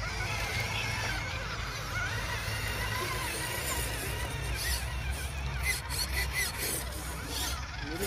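Small electric motors of RC crawler trucks whining as they drive through shallow water, the pitch wavering up and down with the throttle.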